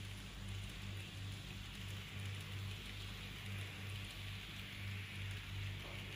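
Model freight train with metal container cars running on the layout track: a steady rattle of wheels on rails under a low hum that swells and fades a few times a second.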